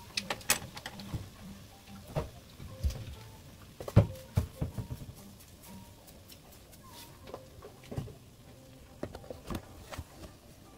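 Wooden spatulas knocking and scraping against a pan while tossing sauce-coated garlic scapes, in a string of irregular clicks with the loudest knock about four seconds in.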